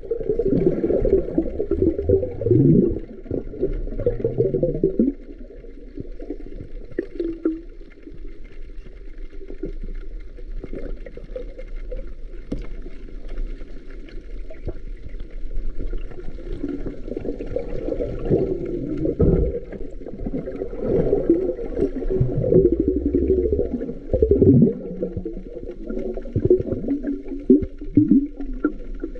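Muffled underwater sound picked up by a submerged camera: water sloshing and gurgling in uneven, swelling rushes, louder for the first few seconds and again in the second half.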